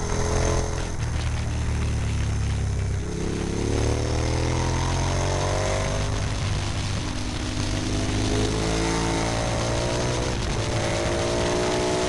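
Onboard sound of a KTM 990 Super Duke's V-twin engine pulling through a series of bends, its revs rising three times as it accelerates, with wind rushing over the microphone.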